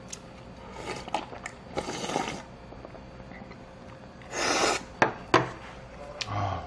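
Slurping sundae-guk broth straight from a stone bowl held to the mouth, several drawn-in sips with the longest about four seconds in. Two sharp knocks follow a moment later, then a short low hum of the voice near the end.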